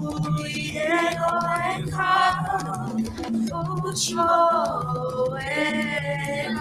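A song performed live: a girl singing into a microphone over a low, held accompaniment line whose notes change every half second or so.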